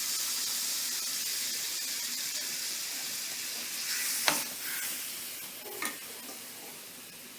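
Tomato and spice masala sizzling in oil in a pan, a steady hiss that slowly dies down, with two light clicks of a stirring utensil about four and six seconds in. The oil separating out shows the masala is fully fried.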